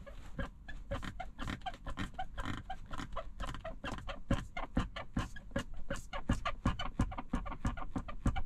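Tesla Model 3 passenger door squeaking again and again, a rapid train of short, high squeaks several a second.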